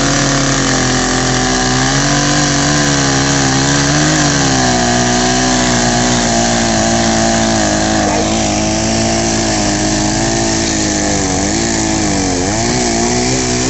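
Two-stroke chainsaw cutting through a palm log, running steadily at high revs, with its pitch sagging and wavering as the chain bites under load.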